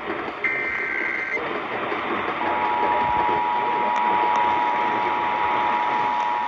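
A burst of about a second of Emergency Alert System SAME header data tones, then about two seconds later the EAS two-tone attention signal starts and holds steady, all over radio static.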